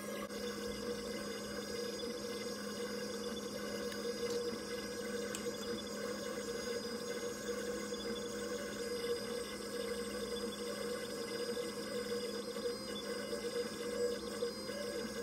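PocketNC V2 desktop 5-axis mill's spindle running steadily while a small end mill cuts blue machinable wax: a steady machine whine made of several held tones over an even hiss of cutting.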